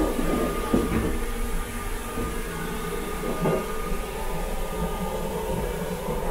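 Running noise of the Sunrise Izumo's 285 series electric sleeper train heard inside its small toilet compartment: a steady low rumble with a faint steady whine and a few short knocks and rattles.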